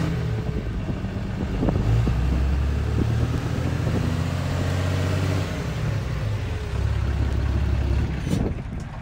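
Ram 2500 pickup's Cummins turbo-diesel straight-six idling steadily. It shuts off about eight seconds in.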